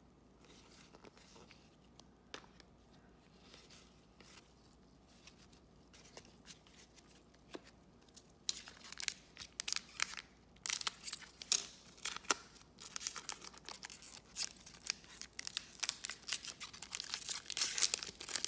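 Faint clicks of trading cards being handled, then from about eight seconds in the loud crinkling and tearing of a foil card pack's wrapper being opened, and near the end a clear plastic sleeve around an insert card being torn open.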